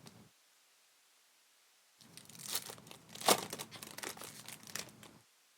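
Crinkling and tearing of a Merlin soccer trading-card pack's wrapper being opened by hand, with sharp crackles. It starts about two seconds in and stops about a second before the end.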